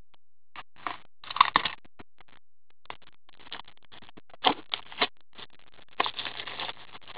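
The seal and packaging of a sealed box of Ultimate hockey cards being torn and opened by hand: irregular crinkling, tearing and scraping in short bursts, the busiest near the end.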